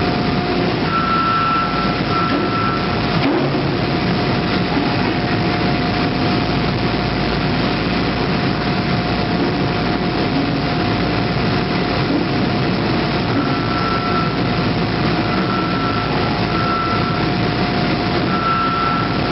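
Loud, steady factory machinery noise with a constant tone running through it. Rhythmic warning beeps sound for the first few seconds and again over the last several seconds. The sound stops abruptly at the end.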